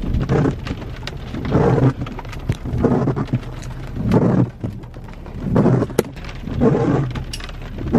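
Car windshield wipers sweeping in the rain, a swish about every second and a bit, over a low steady rumble.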